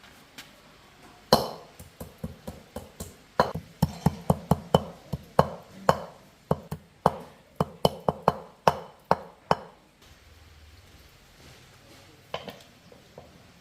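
Hammer striking repeatedly: some thirty-odd sharp blows at about four a second, stopping about ten seconds in, with a couple of lighter knocks near the end.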